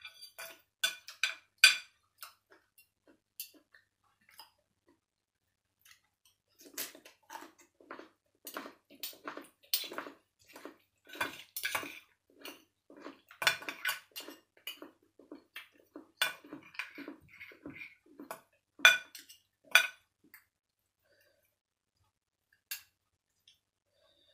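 Metal spoon and fork clinking and scraping against a ceramic plate while food is served and eaten, in many irregular clinks, thickest in the middle.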